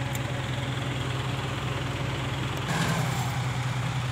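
Diesel engines running steadily with a low, even hum. About three seconds in the sound jumps louder and brighter as it switches to the Ford 7740 tractor's diesel engine close by.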